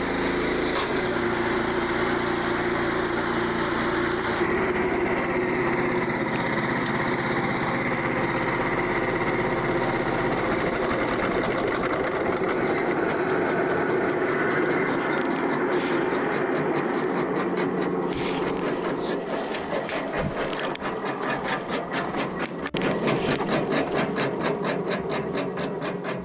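Frontier OS27 portable bandsaw mill running and cutting through a board, with its small engine and band blade making a steady sound. A rhythmic pulsing sets in about halfway through, and there is a sharp click near the end. The blade is running on a seized blade guide bearing, the fault that breaks the blade.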